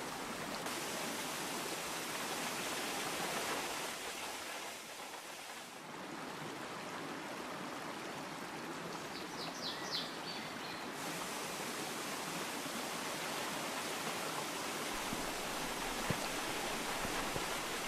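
Shallow mountain stream and waterfall running over rocks: a steady rushing of water that changes in level and tone at each cut between shots. A short run of high chirps comes a little past nine seconds in.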